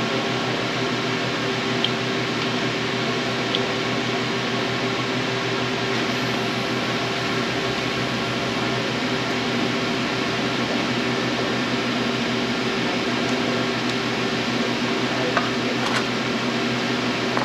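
Steady mechanical hum, like a running fan or air-conditioning blower, with a low steady drone and a few faint clicks over it.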